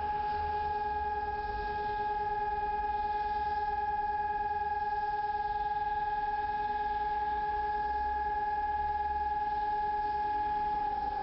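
Russian air raid siren holding one steady high tone, with a low rumble underneath; near the end its pitch begins to fall as it winds down.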